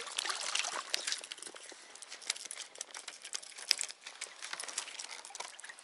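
Thin first ice, about half a centimetre thick, crackling and breaking in a dense run of small cracks as a hooked pike splashes and is drawn across it, with one sharper crack about three and a half seconds in.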